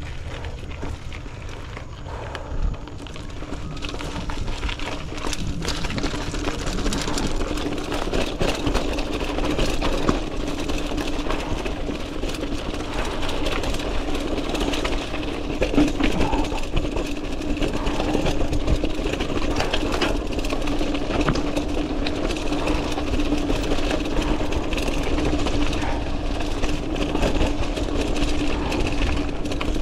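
Mountain bike rolling along a dirt forest trail, with a steady hum from the moving bike and frequent clicks and rattles over bumps. The sound builds over the first few seconds as the bike picks up speed.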